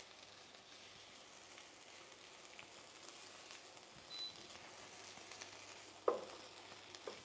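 Sliced white onions sizzling gently in a pot over medium heat as they sweat, with a spoon stirring through them. A brief sharp sound about six seconds in.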